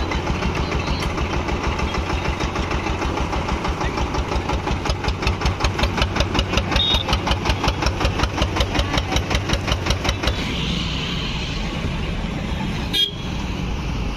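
Engine of a sugarcane juice crushing machine running with an even thumping beat, about four or five beats a second. A little after ten seconds it gives way to street traffic noise, with a short sharp knock near the end.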